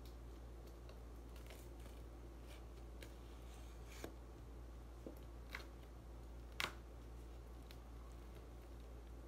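Packing tape on a cardboard parcel being cut and worked open: faint scattered scrapes and clicks, the sharpest about six and a half seconds in, over a steady low hum.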